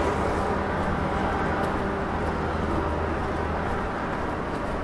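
Town street ambience: a steady low mechanical hum over a constant wash of background noise, the hum easing off a little about halfway through, with a few faint ticks.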